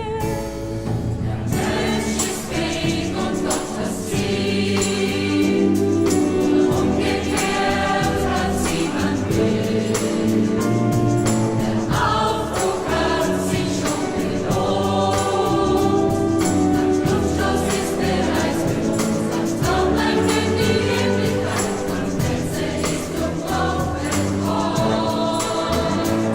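A choir singing a song with instrumental accompaniment and a steady beat.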